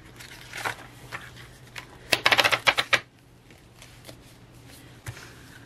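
Paper pages of a discbound planner riffled quickly under a thumb: a fast run of flicking clicks lasting about a second, near the middle, with a few single page taps and rustles around it.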